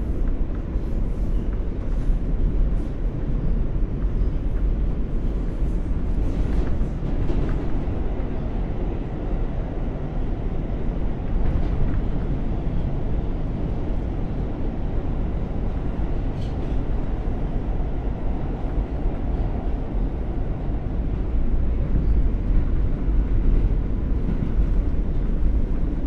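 New York City subway car interior on the Q train, running between stations: a steady low rumble from the wheels on the track, with a few faint clicks and rattles.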